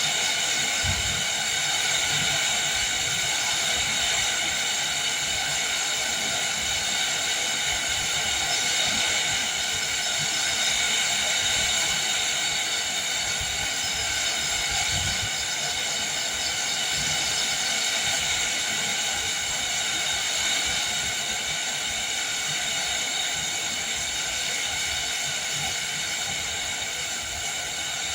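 Steady heavy rain with wind, the wind gusting and buffeting low and unevenly underneath the even hiss of the rain.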